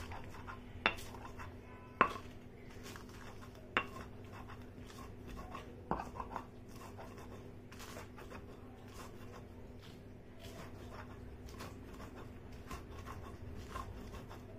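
Stone muller (batta) rocked and pressed over a flat grinding stone (sil-batta), crushing salt, green chillies and garlic: irregular stone-on-stone scraping and small clicks, with a few sharper knocks in the first half.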